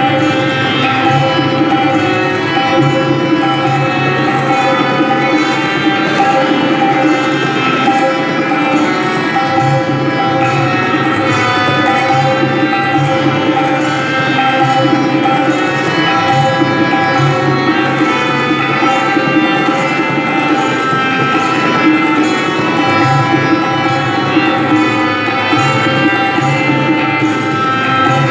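Tabla being played in a fast, even rhythm over a steady, sustained melodic accompaniment in Indian classical style.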